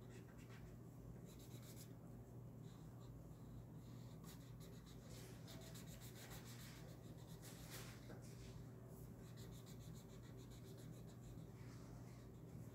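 Faint scratchy strokes of a felt-tip marker rubbed back and forth on paper as a drawing is coloured in, over a steady low hum.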